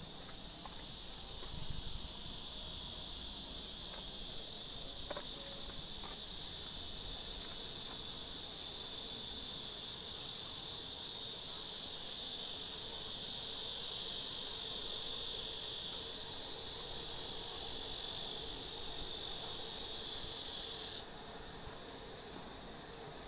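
Cicadas buzzing in a steady, high-pitched chorus that grows a little louder in the last part and then cuts off suddenly a couple of seconds before the end.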